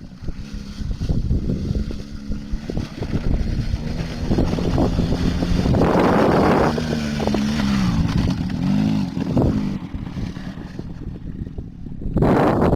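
Small ATV engine running, its pitch rising and falling a few times in the middle as the throttle is worked. A loud rushing noise comes in near the end.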